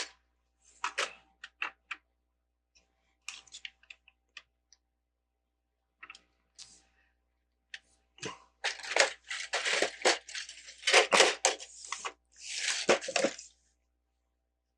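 Plastic LEGO bricks clicking and clattering as they are handled and pressed together: a few scattered clicks at first, then a busier run of clicks and clatter in the second half.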